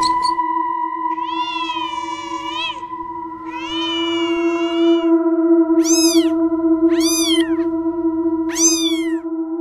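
Domestic cat meowing five times: two long, drawn-out meows, then three shorter ones that rise and fall. A steady tone sounds underneath.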